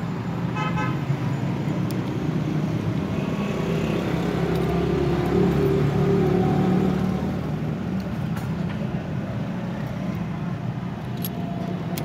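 Road traffic: vehicle engines running steadily, with a short car horn toot about half a second in and a vehicle growing louder as it passes from about four to seven seconds in.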